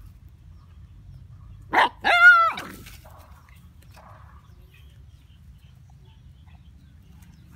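A dog gives a short bark, then a longer, high yelp about two seconds in.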